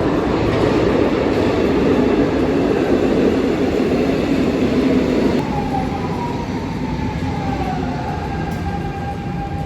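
Lisbon Metro train in an underground station: a loud rumble of wheels and motors for about five seconds, then the noise drops and a whine falls slowly in pitch as the train slows.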